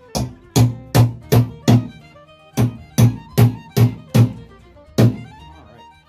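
Hammer driving nails to fasten an electrical junction box to the framing: two quick runs of five blows, then one more blow near the end.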